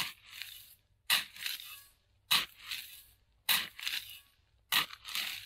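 Shovel digging a pit in the ground: five strokes about every 1.2 seconds, each a sharp crunch into the soil trailed by a softer rustle.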